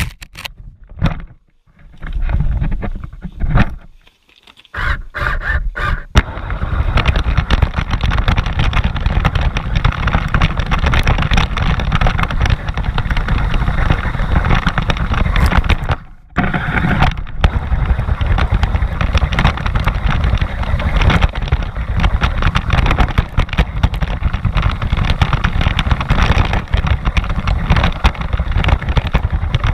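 Onboard sound of a radio-controlled rally car driving on rough, gritty asphalt, picked up by a camera mounted on its chassis: a loud, dense rumble and rattle of tyres and chassis over the grit. For the first few seconds it comes in short stop-start runs with a few sharp knocks. From about six seconds in it runs continuously, with one brief dip about sixteen seconds in.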